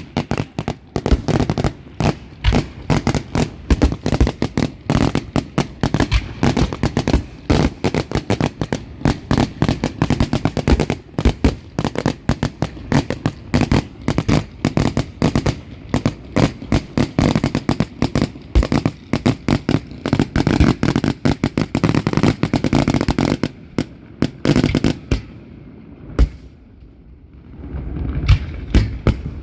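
Fireworks going off in a dense, rapid barrage of bangs and crackles. They thin out after about 24 seconds, and a few more bangs and a rising rumble follow near the end.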